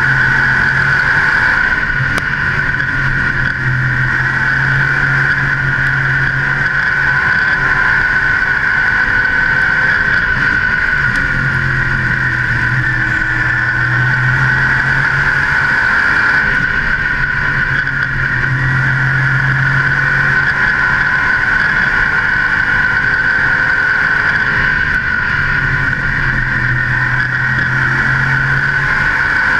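Asphalt modified race car's engine running hard at racing speed, heard from the car, its low note strengthening and fading every few seconds as the driver works the throttle through the laps, over a steady rushing drone.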